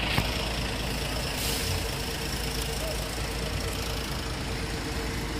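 Intercity bus engine idling steadily, with a short sharp click just after the start.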